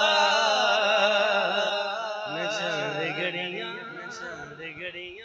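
A man's voice sustaining and ornamenting the final sung note of a naat line, the pitch wavering as it trails off. It gradually fades over the few seconds.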